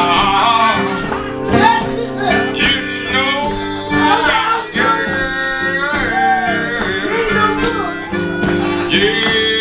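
Blues harmonica solo with notes bending up and down in pitch, played over a strummed acoustic guitar.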